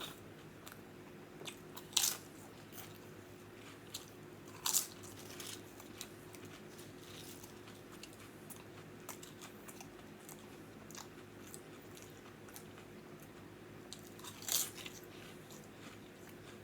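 Close-miked chewing and biting of an Italian sub on a crusty roll, with a few sharper crunches: about two seconds in, just under five seconds in, and near the end. A faint steady hum lies underneath.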